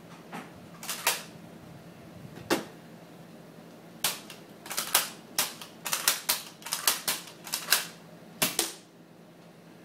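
Toy Nerf dart gun clacking as it is worked and fired: a run of about twenty sharp plastic clicks and snaps. A few come spaced out at first, then several a second from about four seconds in, stopping shortly before the end.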